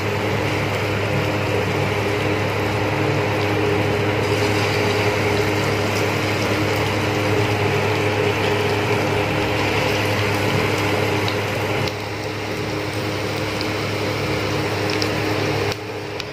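Bonda batter deep-frying in hot oil in a kadai: a steady sizzle with a low hum underneath, a little quieter near the end.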